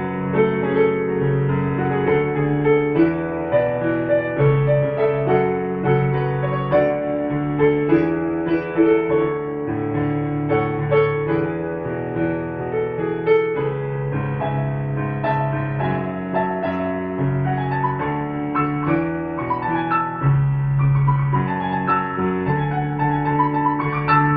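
Background piano music, a continuous run of notes with held lower notes beneath a melody.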